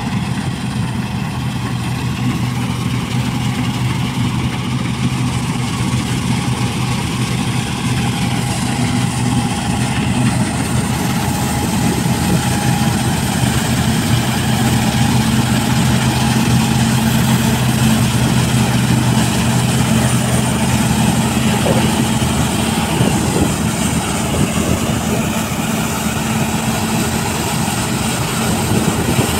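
New Holland TC5070 combine harvester running steadily while cutting and threshing barley: a continuous engine hum under working load with machinery noise, getting a little louder as it draws near.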